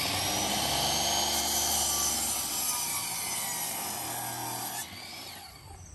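Compound miter saw running and its spinning blade cutting down through a pressure-treated board, a steady high whine under the rasp of the cut. Near the end the sound drops away with a falling whine as the blade slows.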